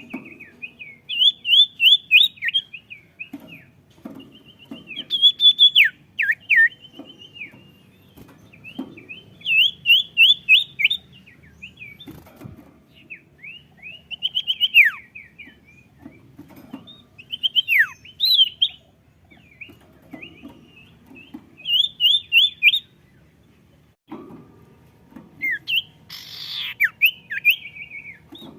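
A sirtu songbird singing vigorously: short bursts of rapid, high chirping trills, repeated every couple of seconds with brief pauses between them.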